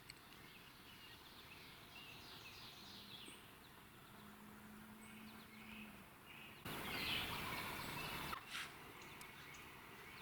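Songbirds chirping in woodland, with a faint steady hum for a few seconds in the middle. About seven seconds in, a loud rush of noise starts suddenly and cuts off just under two seconds later.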